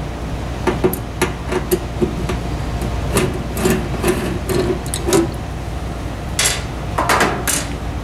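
Small metallic clicks and taps of a hand tool working the screws on a laser cutter's sheet-metal control panel. Near the end come a few louder scrapes and rattles as the panel is pulled loose from the cabinet.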